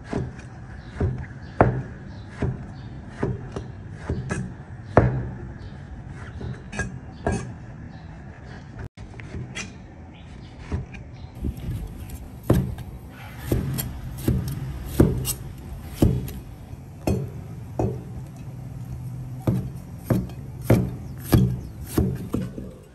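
Kitchen knife chopping on a wooden cutting board: irregular sharp strokes, roughly one or two a second, over a steady low hum.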